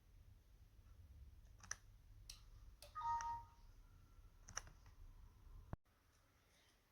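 Several sharp clicks with a short electronic beep of a few steady tones about three seconds in, over a faint low hum that cuts off with a click near the end.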